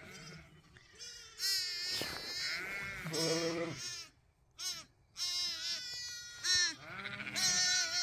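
Newborn Zwartbles lambs bleating, high wavering calls one after another with a short lull about halfway, and a few deeper ewe bleats among them: lambs and mothers calling to find each other.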